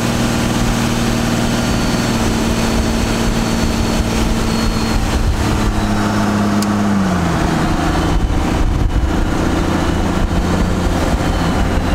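Inside the cab of a 2001 1500 pickup on the move: steady engine hum and road noise. The engine note drops in pitch about seven seconds in.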